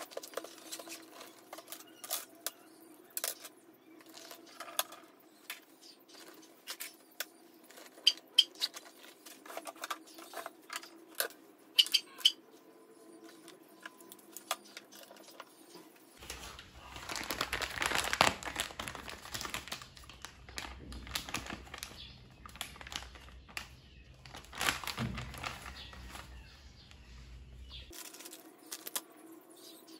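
Small objects, among them a plastic phone stand, being picked up and set down on a desk: scattered light clicks and taps over a faint steady hum. About halfway through comes a louder stretch of rustling with a few knocks, lasting around ten seconds.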